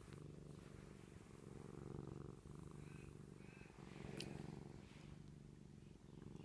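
Domestic cat purring steadily while being stroked, the purr swelling and easing roughly every two seconds.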